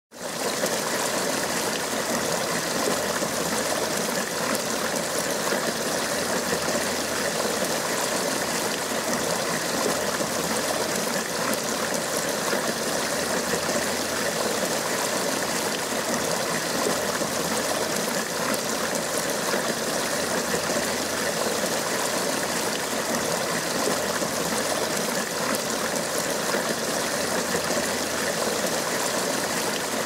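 Water splashing and trickling steadily down the stacked basins of a multi-level polyresin tree-trunk outdoor fountain.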